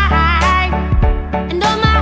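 Background pop music with a sung vocal line over a steady bass.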